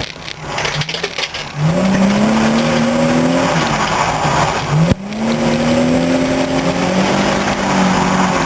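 Nissan 350Z (Z33) V6 engine pulling hard, its pitch climbing, then dropping sharply about five seconds in with a click, and climbing again.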